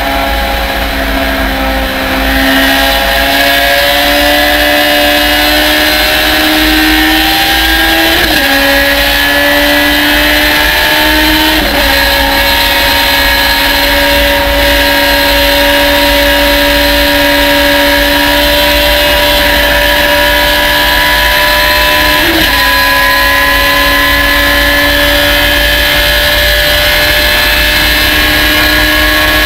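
Race car engine pulling hard from the open cockpit, its pitch climbing slowly and dropping sharply at three quick upshifts, about 8, 12 and 22 seconds in.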